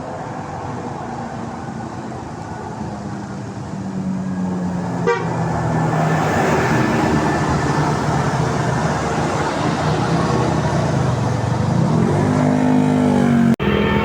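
Bus's telolet basuri musical horn sounding over its engine, growing louder about four seconds in as the bus comes near. The sound drops out for an instant near the end.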